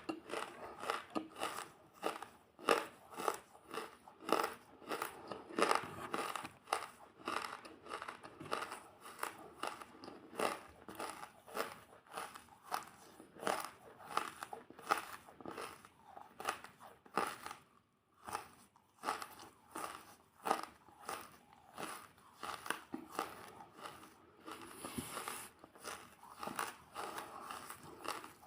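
Close-miked chewing of crunchy food, a steady run of crisp crunches about two a second.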